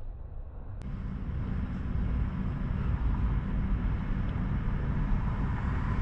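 Steady low rumble and hiss of outdoor background noise, a little louder from about a second in, with no bark or voice inside it.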